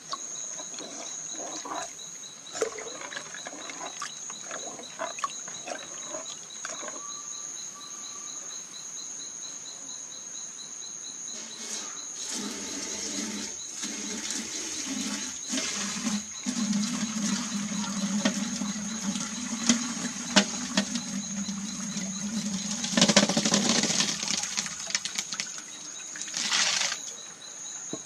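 Insects trill steadily at a high pitch, with a faster pulsing trill beneath, and scattered knocks and clicks. From about twelve seconds in, a louder rough noise with a low hum rises, loudest around twenty-three seconds, and fades away shortly before the end.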